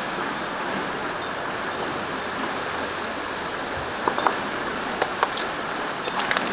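Steady rush of flowing river water, with a few small splashes and drips from hands moving in the shallows about four seconds in.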